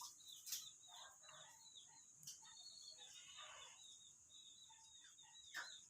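Near silence with faint background bird chirping, many short high chirps, and a few soft clicks.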